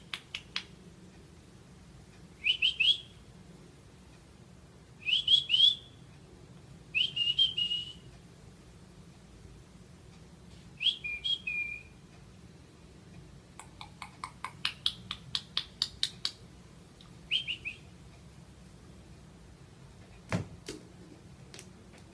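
A small bird chirping off and on in short bursts of two to four quick rising notes, with a faster run of chirps about two-thirds of the way through. A single knock sounds near the end.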